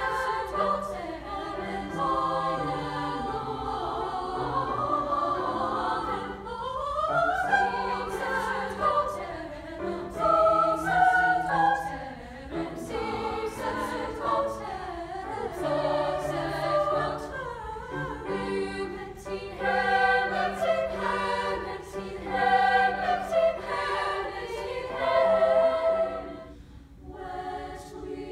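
Treble choir of women's voices singing in several parts, with grand piano accompaniment. Near the end the singing briefly drops away, and the choir starts a new piece unaccompanied.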